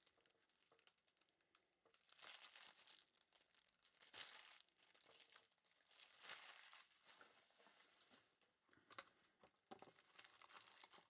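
Faint crinkling and tearing of Topps Merlin Chrome trading-card pack wrappers being opened and handled by hand, in short bursts every two seconds or so.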